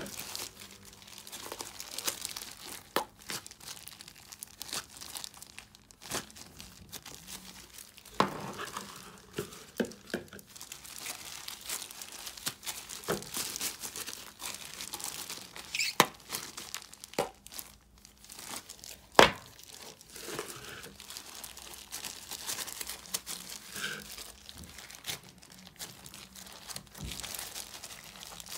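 Thin disposable plastic gloves crinkling as hands knead, pull apart and pack soft butter slime into plastic containers, with occasional sharp clicks and taps, the loudest about two-thirds of the way through.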